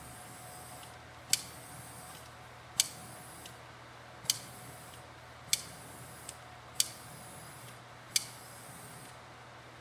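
Handheld butane torch lit over and over: six sharp igniter clicks about every second and a half, each followed by a short hiss of burning gas.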